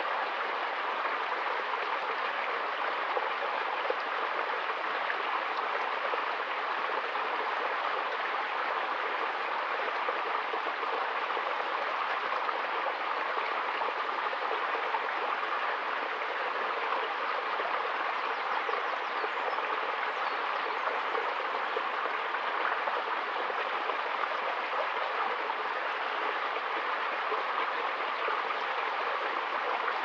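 A small rocky stream running over stones and little cascades, a steady, even rush of water with no change throughout.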